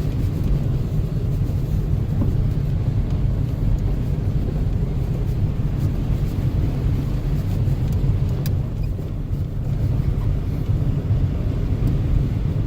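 Car driving: a steady low rumble of engine and road noise, with a few faint clicks.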